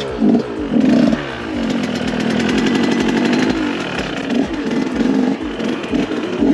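Off-road motorcycle engine revving, its pitch rising and falling: a couple of short blips at first, then held at higher revs for a couple of seconds before easing and picking up again.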